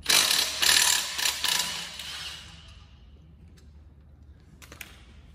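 A tool loosening a fastener while parts come off the Nissan TD42 diesel engine: a loud burst of rapid mechanical clicking and rattling for about two and a half seconds, fading out, then one short click near the end.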